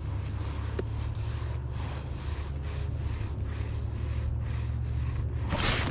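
Wind buffeting the microphone in a steady low rumble, over the faint, evenly pulsing whir of a bait-finesse baitcasting reel being cranked through a retrieve. A short, louder rustle comes near the end.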